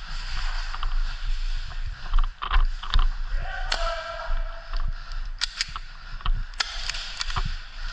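Rustling movement noise with scattered sharp clicks and snaps, and a brief pitched tone about three seconds in.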